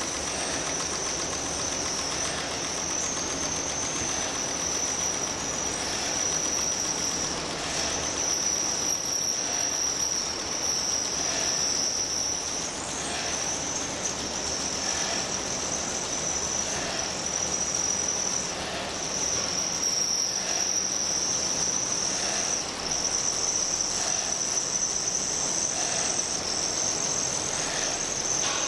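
Motorized found-object sound sculpture, a small clamped motor with a coiled spring hanging to a paper cup, giving a steady high-pitched whine over a hiss, with a soft pulse about every second and a half.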